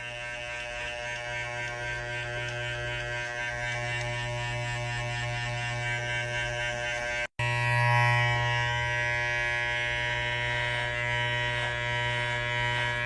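Electric hair clippers buzzing steadily through a haircut. The buzz cuts off abruptly about seven seconds in and comes back a little louder.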